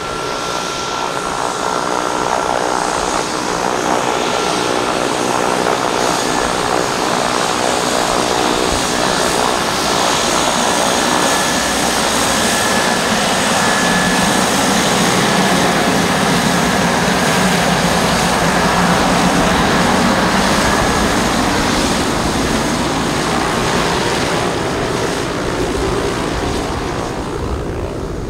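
US Navy UC-12F King Air's twin Pratt & Whitney Canada PT6A turboprops running as it taxis close by, with a steady whine over the propeller noise. The sound swells a little in the middle and eases slightly near the end.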